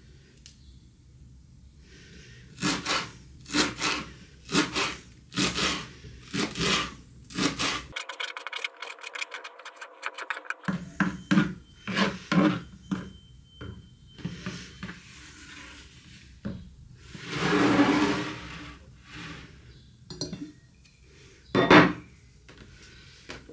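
Kitchen food-prep sounds: a run of short rasping strokes about once a second, broken off briefly and then resumed, a longer scrape a little past the middle, and a sharp knock near the end.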